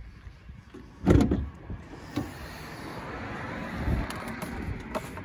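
BMW E36 bonnet being opened: a loud thump about a second in as it comes off its catch, then smaller clicks and a knock as it is lifted and handled.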